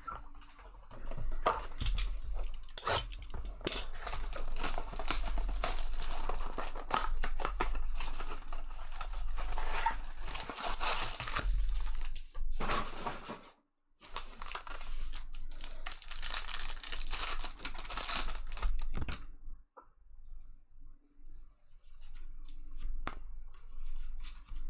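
Trading card pack wrappers being torn open and crinkled, a dense run of tearing and crinkling with a short break partway through. It turns to quieter, scattered handling near the end.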